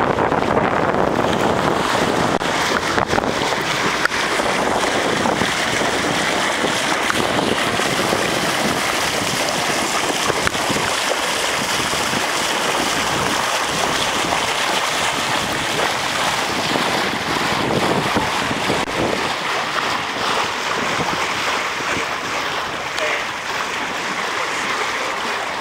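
Steady rush of water along a sailboat's hull as it sails, with wind buffeting the microphone.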